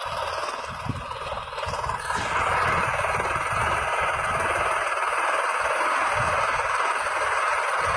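Helicopter running on the ground with its main rotor turning: a steady whine and rush of turbine and rotor noise with a low, uneven beat underneath, growing louder about two seconds in and then holding steady.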